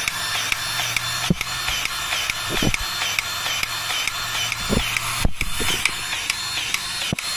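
Battery-powered grease gun running, its pump clicking in a fast steady rhythm of about five strokes a second over a low motor hum. It is forcing grease into a Cat D7F dozer's track adjuster to tension the track.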